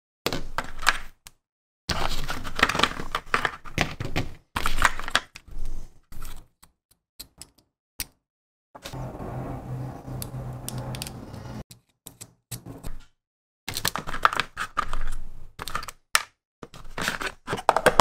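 Small hand tools (metal side cutters, sanding sticks, hobby knife, tweezers) being picked out of a clear plastic storage box and set down on a table: irregular clicks, knocks and rattles of metal and plastic, in separate bursts with short silences between. A softer, steadier stretch of a few seconds comes near the middle.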